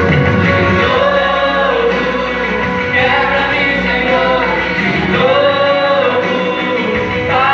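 A small mixed vocal group singing a Portuguese-language gospel song together, one woman's voice carried on a handheld microphone, over instrumental accompaniment.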